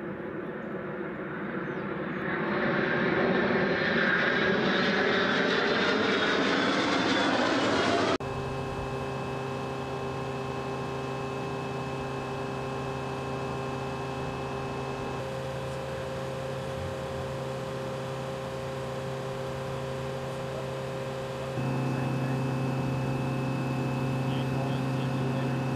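Military jets in formation flying overhead: a roar with a sweeping, shifting tone that builds over several seconds and cuts off suddenly about eight seconds in. Then a steady machine hum made of several fixed tones, which shifts partway through and gets louder about twenty seconds in.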